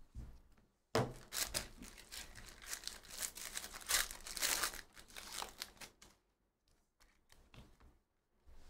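A 2023-24 Panini Donruss Basketball hobby pack's foil wrapper being torn open and crinkled. The tearing starts sharply about a second in and crackles for about five seconds, then a few soft clicks follow.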